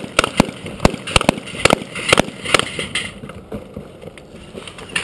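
A quick string of gunshots, about ten irregularly spaced in the first three seconds, then only a few scattered shots.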